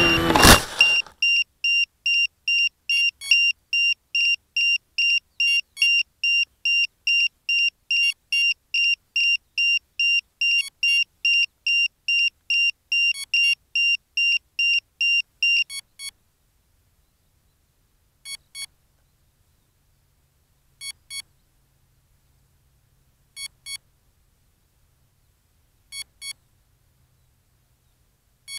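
A model plane's electric motor cuts off with a loud thump as it hits the ground within the first second. An electronic beeper on the downed aircraft then beeps about two and a half times a second until about 16 s, and after that gives a double beep every two and a half seconds.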